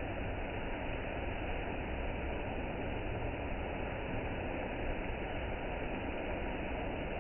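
Automatic conveyor car wash running: a steady hiss of water and foam spraying down onto a car, with the wash machinery running underneath.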